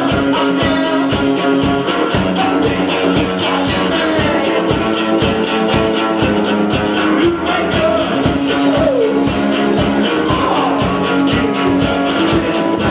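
Live rock-and-roll band playing: a drum kit keeps a steady beat of about four hits a second under electric guitar, with a man singing.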